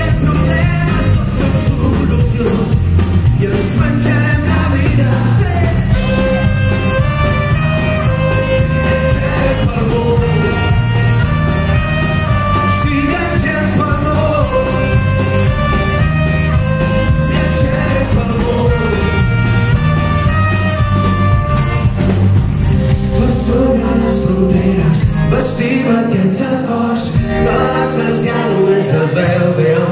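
Live pop-rock band playing loud, with drums, bass and guitars and a melody of held notes on top, heard from the audience. Near the end the bass and drums drop out, leaving a quieter, thinner passage.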